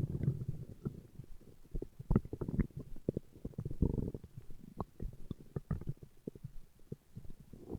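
Human stomach growling and gurgling: irregular short pops and squelches, with a longer bubbling gurgle about four seconds in.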